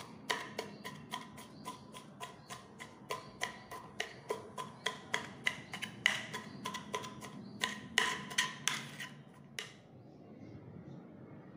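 Knife chopping amaranth stems and leaves on a wooden chopping board: a steady run of sharp chops, about three or four a second, each with a brief ring, stopping near the end.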